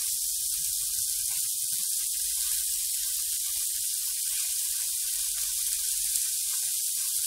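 Sausage slices and garlic frying in hot oil in a frying pan: a steady sizzle with a few faint small pops.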